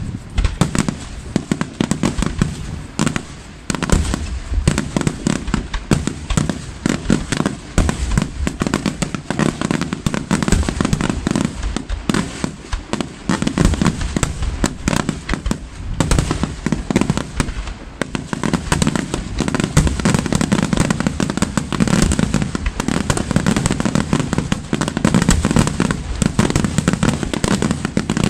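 Aerial firework shells bursting in a dense, continuous barrage, many bangs overlapping with crackle in between.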